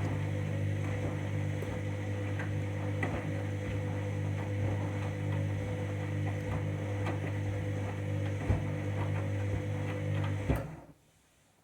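Candy washing machine running its main wash: the motor turns the drum with a steady hum, with scattered knocks from a light bedding load that is a bit out of balance and tangled. Two louder knocks come near the end, and the motor stops suddenly about ten and a half seconds in.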